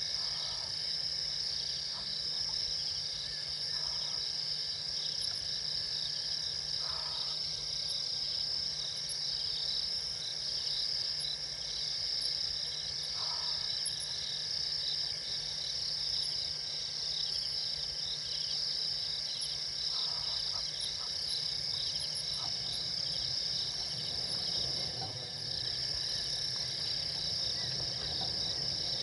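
Steady night chorus of crickets and other insects, several high shrilling tones layered together, with a few short faint calls every few seconds.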